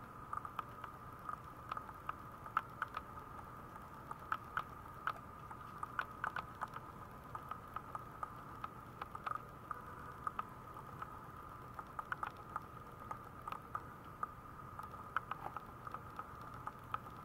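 Maltese puppy gnawing and mouthing at the rim of a plastic tray: irregular small clicks and taps, a few a second.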